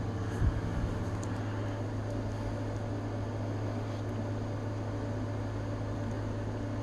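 Room tone: a steady low hum with a faint hiss, and a couple of faint light knocks about half a second in.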